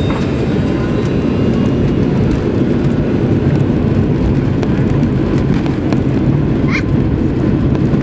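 Cabin sound of a McDonnell Douglas MD-82 on its takeoff roll: a loud, steady rumble from the rear-mounted Pratt & Whitney JT8D turbofans at takeoff thrust, with the airframe rolling fast on the runway. A short rising squeak comes about seven seconds in.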